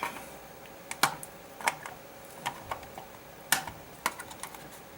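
Irregular light clicks and taps of small tools and parts being handled on a workbench, about ten sharp ticks over a few seconds.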